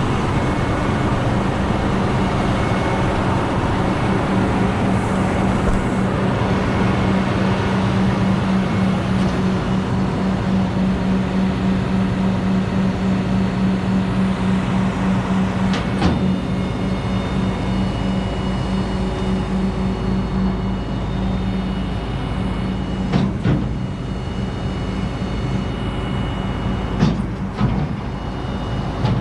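Heavy diesel engine running with a steady drone that eases after about 20 seconds, with a few sharp metallic knocks near the end.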